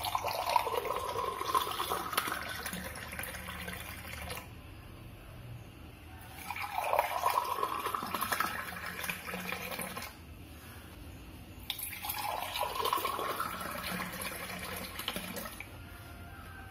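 Spiced buttermilk poured in a thin stream into three glass tumblers, one after another: three separate pours, each splashing and rising in pitch as the glass fills.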